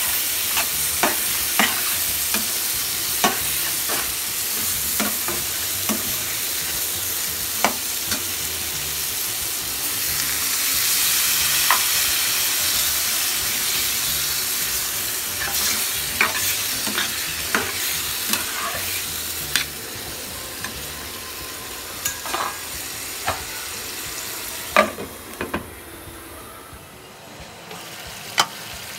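Potatoes, flat beans and tomato sizzling in a pan while a metal spatula stirs them, with frequent short clicks and scrapes of the spatula against the pan. The sizzle grows louder a little past the middle and dies down over the last few seconds, with a few harder knocks.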